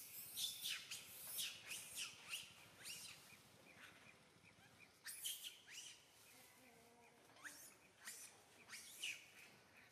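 Small birds chirping in the trees: quick bouts of short, high chirps, thinning out about halfway through, then picking up again in clusters.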